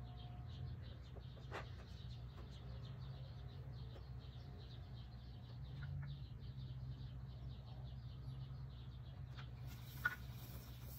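A small bird chirping over and over in short, evenly spaced chirps, about three or four a second, over a steady low hum. A single sharp click sounds about ten seconds in.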